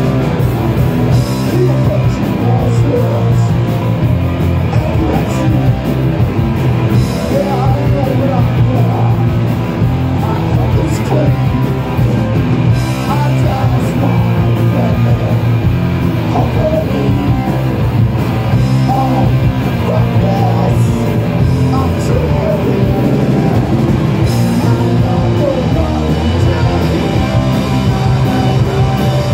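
A rock band playing live and loud: electric guitar and a drum kit, with cymbal crashes cutting through now and then.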